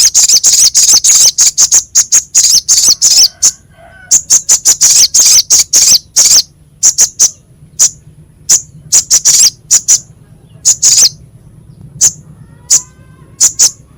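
Sogok ontong bird singing a harsh, sharp song: fast runs of short, high-pitched notes, with a brief pause about three and a half seconds in and more spaced-out notes in the second half.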